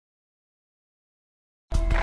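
Dead digital silence, then near the end a loud sound cuts in abruptly at full strength.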